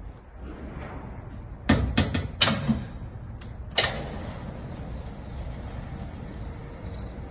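Metal gate of a GEDA 1500 construction hoist platform being swung shut and latched: a quick run of loud metal clanks about two seconds in, then one more clank about a second later. After that, a steady mechanical running sound as the hoist's motor drives the platform up the mast.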